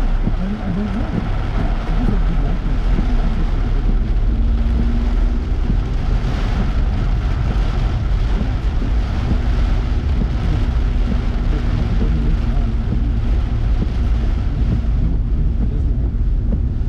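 Car driving on a wet road, heard from inside the cabin: a steady low rumble of tyres and engine with a hiss of tyre spray, which swells briefly about six seconds in.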